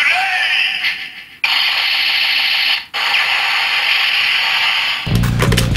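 Electronic sound effects and music from a Kamen Rider Zi-O toy transformation belt with Ride Watches fitted: a bright, buzzing effect cut off twice by short breaks, then music with a heavy bass beat starting about five seconds in.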